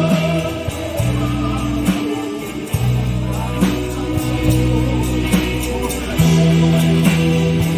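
Live band playing a slow Korean pop song, with held bass notes, guitar chords and drum hits.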